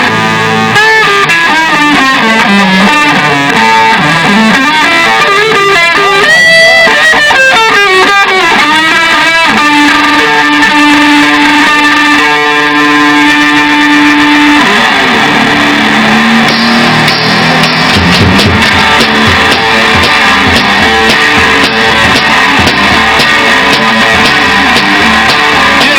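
Electric guitar playing an instrumental solo in a rock song, with bent notes for about the first ten seconds and a long held note after; lower strummed notes come in near the two-thirds mark.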